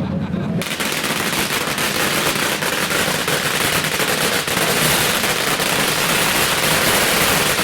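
A long run of firecrackers going off in rapid, continuous crackling, starting suddenly just after the start.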